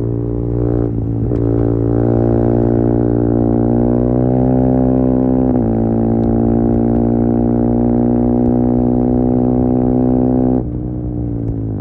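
KTM Duke 390's single-cylinder engine through a de-catted Akrapovic slip-on exhaust, running under steady throttle with a deep, even drone. The note breaks briefly about a second in and again past five seconds, then falls away in level near the end as the throttle is closed.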